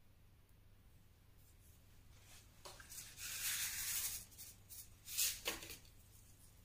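A seed packet rustling and crinkling as it is handled and seeds are shaken out, for about a second and a half starting some three seconds in, followed by a few short rustles and light clicks.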